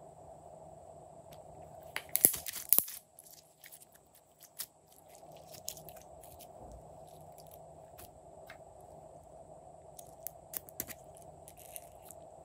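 Clear slime being stretched and pressed by hand into sprinkles, making sticky crackling and popping sounds. A dense burst of loud crackles comes about two seconds in, then scattered clicks near the end, over a faint steady hum.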